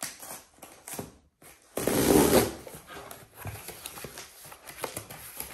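Packaging of a mail-order food parcel being handled and unpacked: a louder rustling scrape about two seconds in, then small rustles and clicks.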